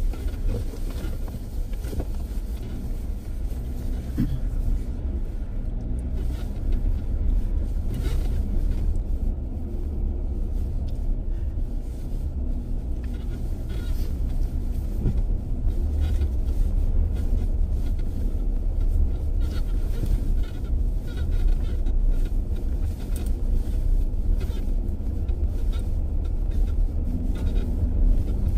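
Off-road vehicle running: a steady low rumble from the engine and drivetrain while driving over rough ground, with a few light knocks.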